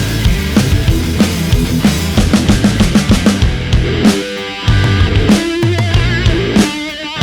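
Heavy rock music with a fast, driving drum beat, bass and distorted electric guitar; the band drops out briefly about four seconds in and again near the end.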